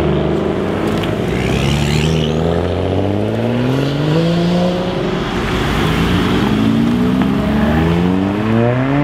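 Several cars in turn accelerating hard away, their engines and exhausts revving up in one rising sweep after another, with drops in pitch as they shift gears.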